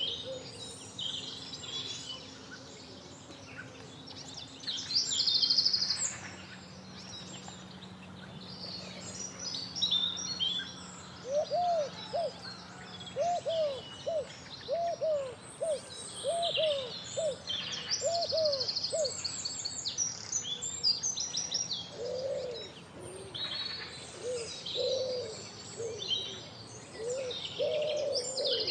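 Birdsong chorus: several birds singing quick, high phrases, joined through the middle and latter part by a lower call repeated about once a second.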